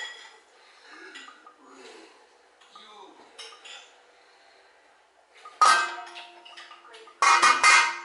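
Stainless steel cooking pot and lid clattering: a sharp clink at the start, then two loud metallic clatters that ring on briefly, about five and a half and seven seconds in.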